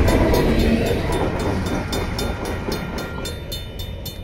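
Tail end of a Union Pacific freight train's hopper cars rolling over the crossing, the rumble fading over the first couple of seconds as the last car passes. Over it the crossing's mechanical bell keeps striking steadily, about four strokes a second, each with a ringing tone.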